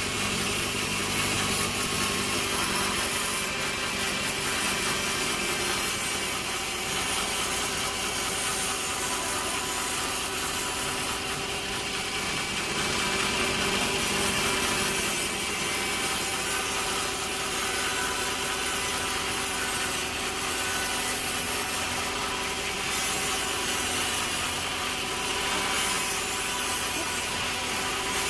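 A sawmill saw cutting steadily through a log, with the machine's steady hum under the noise of the cut.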